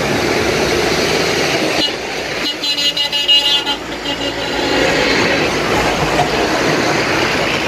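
Floodwater rushing under a road bridge, with passing traffic, makes a steady loud roar. A vehicle horn sounds for about a second, a little way in.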